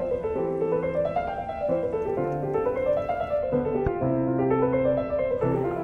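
Background music: a piano playing runs of notes that climb and fall over held low notes.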